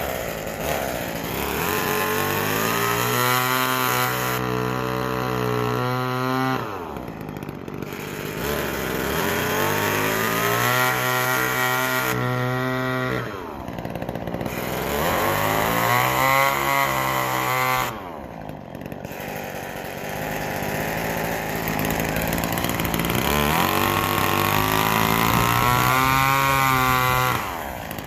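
McCulloch Mini Mac 120 two-stroke chainsaw running and revving. It climbs to full throttle for a few seconds at a time and drops back toward idle between, about four times, as it cuts the eye holes through a pumpkin's thick wall. Near the end it drops off.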